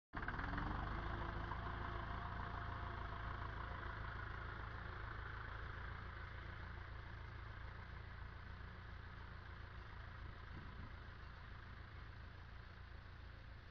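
Ferguson tractor engine running steadily as the tractor works a freshly tilled field, growing gradually fainter as it pulls away.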